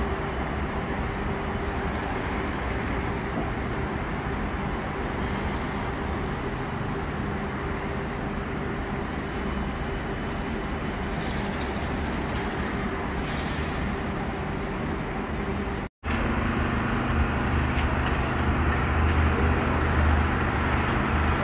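Road traffic: a steady wash of passing cars and vans. Partway through it cuts out for an instant, then comes back a little louder with a low steady hum.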